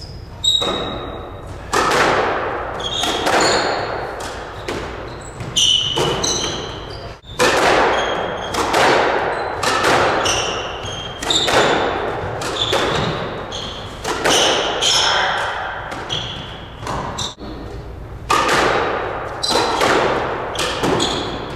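Squash rally: the ball cracking off rackets and the walls about once a second, each hit ringing out in the enclosed court, with sneakers squeaking briefly on the hardwood floor between shots.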